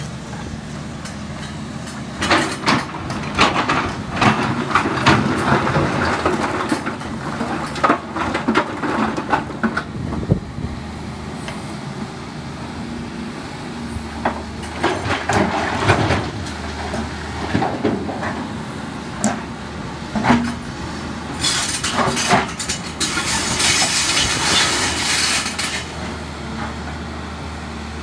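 Volvo EC210B hydraulic excavator's diesel engine running steadily while its bucket digs into and loads broken quarry stone, with repeated clusters of rocks clattering and knocking against each other and the steel bucket. About three-quarters through, a longer continuous rattle of stone pours and scrapes for a few seconds.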